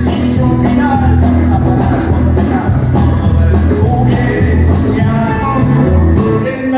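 A live country band plays loudly: a man sings into the microphone and strums an acoustic guitar over bass and drums.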